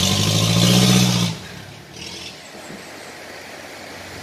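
Cargo truck's engine running hard as the truck drives through a shallow rocky river, dropping away about a second in. The steady rushing of the river over stones is left.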